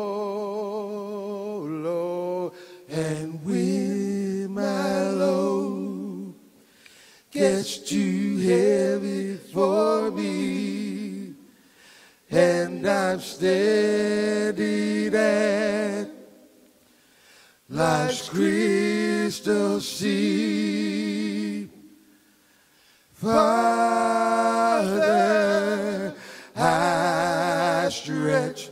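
Men's voices singing a cappella, with no instruments, in sung phrases broken by several short pauses and with wavering held notes.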